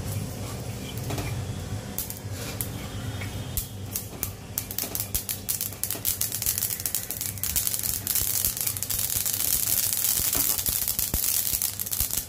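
Sesame seeds dry-roasting in a hot stainless steel pan while a silicone spatula stirs them: scattered ticks at first, then from about halfway a dense, rapid crackling as the seeds toast.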